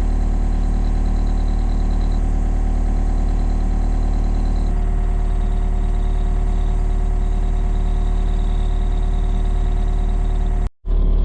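Komatsu excavator's diesel engine idling steadily, with a slight change in its tone about halfway through and a brief cut-out near the end.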